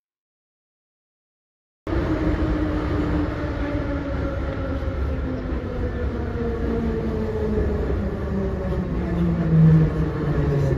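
Silence for about two seconds, then the steady rumble of a passenger train carriage running on rails, heard from inside the car. A motor whine rides over it and slowly falls in pitch.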